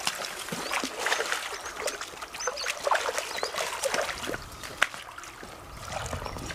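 Hooked tilapia thrashing at the water surface, with irregular splashing and sloshing as it is played close to the bank.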